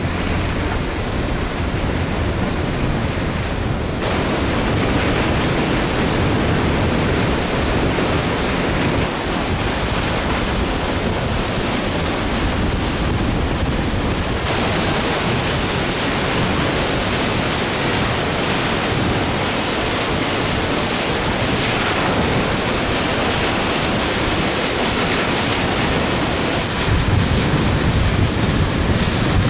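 Steady rushing hiss of the Valaste waterfall's water falling through its ice-encased gorge, a dense unbroken noise. It shifts in tone at about four and fourteen seconds in and grows louder near the end.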